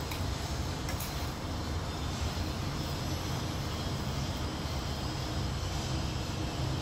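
Steady low rumbling background noise, with a couple of faint clicks near the start from a metal spoon scraping the frying pan.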